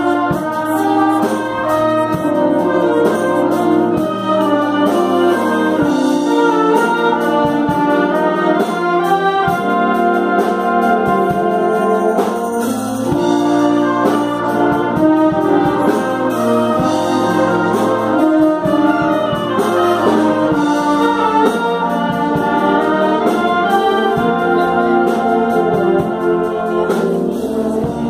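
A concert band of flutes, clarinets, saxophones and brass playing together at a steady volume, with held low brass notes under moving upper parts.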